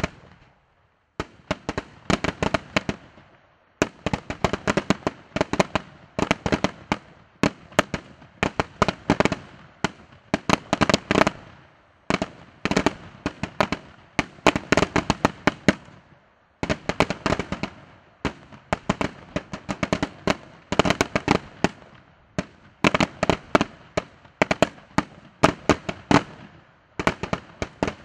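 Aerial firework shells bursting in rapid volleys of sharp bangs, many per second, with a few short pauses between volleys.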